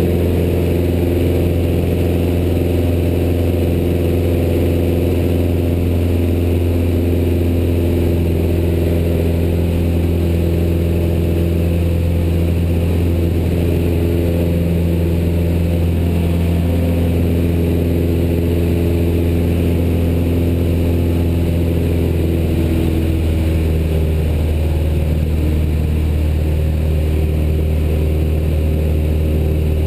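Piston engine and propeller of a high-wing single-engine light aircraft droning steadily in flight, heard inside the cabin. About 23 seconds in, the engine speed drops slightly and the drone settles a little lower in pitch.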